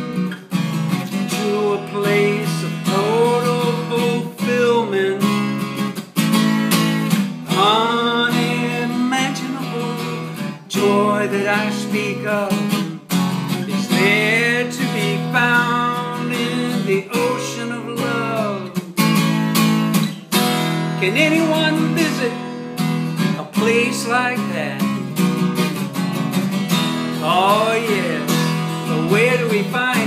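A man singing a slow original song, accompanying himself on a strummed acoustic guitar.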